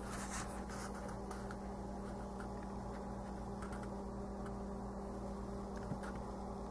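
A steady low electrical hum, with a few faint soft taps and rustles from handling the paper pages of a notebook near the start and once near the end.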